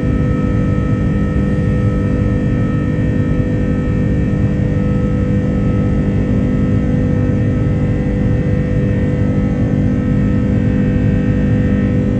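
Airbus A330-300 cabin noise during the climb after takeoff: the turbofan engines at climb power give a loud, steady drone with several steady whining tones held over it.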